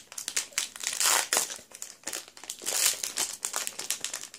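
Crinkling of a Pokémon booster pack's foil wrapper as it is handled and opened: irregular rustles, loudest about a second in and again near three seconds.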